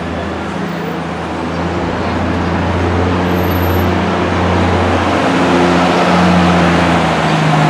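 A motor vehicle's engine running steadily close by, a low hum with street traffic noise, growing a little louder toward the end.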